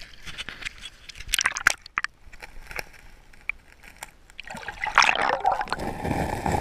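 Stream water sloshing and gurgling around a GoPro in its waterproof housing as it is dipped below the surface, with irregular clicks and knocks. It grows louder from about four and a half seconds in.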